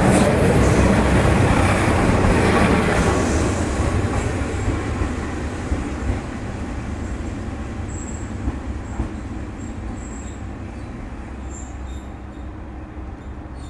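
Joso Line diesel railcar running on the track, its rumble loudest at the start and fading steadily over the following seconds. A few brief, faint high wheel squeals come around the middle.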